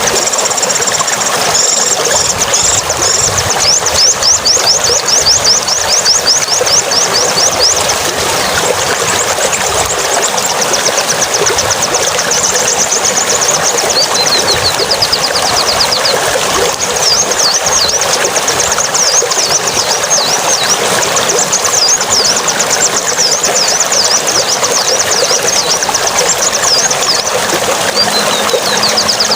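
Songbird singing in runs of rapid, repeated high chirps that sweep up and down, over a steady rushing sound like running water.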